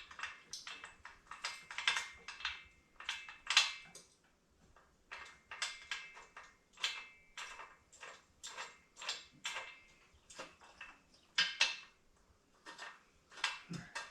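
Metal parts and hand tools clinking and scraping in a series of short, irregular strokes, some with a brief metallic ring, as steel bolts and fittings on a transmission jack are handled and worked into place.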